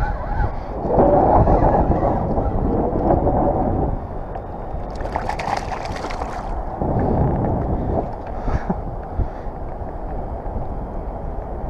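Choppy sea water sloshing and gurgling against a kayak hull, with wind buffeting the microphone. A brief louder hiss comes about five seconds in.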